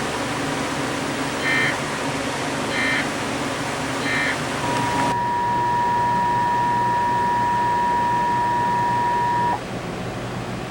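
Emergency Alert System signalling. Three short data bursts, about a second apart, mark the end of the previous alert. Then a single steady attention tone holds for about five seconds and cuts off.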